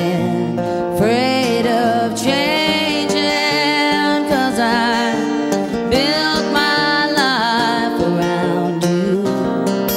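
Background song: acoustic guitar strumming under a singing voice that holds long, sliding notes.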